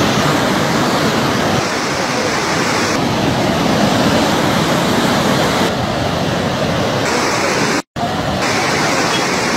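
Muddy floodwater rushing through village streets: a loud, steady rush of moving water. The sound cuts out for an instant about eight seconds in.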